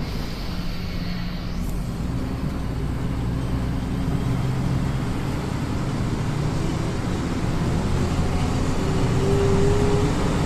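Coach bus running steadily at road speed, heard from inside the passenger cabin: a continuous low engine drone under road and tyre noise.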